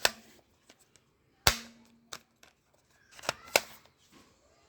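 Toy gun being fired: a series of sharp pops, a loud one about a second and a half in, a smaller one after, and two more in quick succession after about three seconds.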